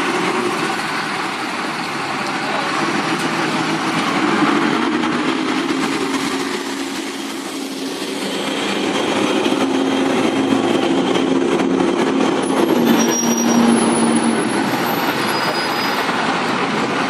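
Diesel single-deck buses pulling away and driving past, engines running under load and swelling and fading as they go by. A brief high squeal comes about thirteen seconds in.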